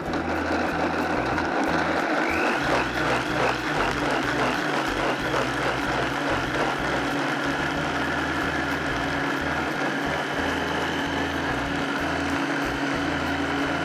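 Vitamix blender motor running at speed, puréeing fresh tomatoes with herbs and spices. It churns unevenly for the first few seconds as the pieces break down, then runs with an even whir, and stops at the end.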